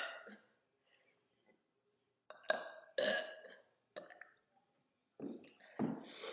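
A woman burping on purpose: a long burp about two and a half seconds in, with a shorter one about four seconds in and more throat sounds starting near the end.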